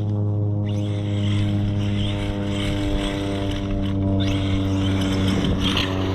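Steady low mechanical drone holding one pitch, with a stack of even overtones, and brief rushes of noise over it.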